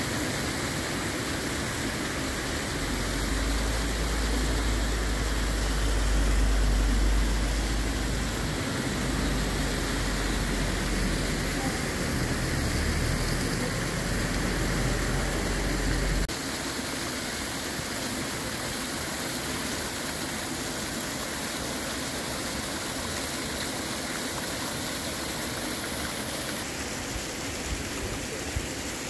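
Hot spring water rushing steadily down a steaming rock cascade. A bus's engine runs low underneath from about three seconds in and stops suddenly about sixteen seconds in.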